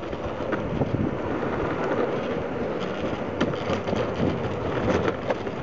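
Longboard wheels rolling over asphalt, with wind buffeting the microphone and a few sharp knocks.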